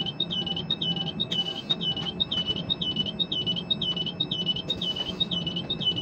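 Quay crane warning alarm beeping in an even rhythm, about two high beeps a second, over a steady low hum of the crane's machinery. Two short hissing bursts come about a second and a half in and again near five seconds.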